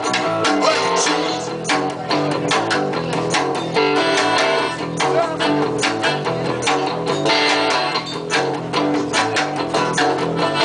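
Live rock band playing an instrumental passage without vocals: electric guitars over a steady, driving drum beat.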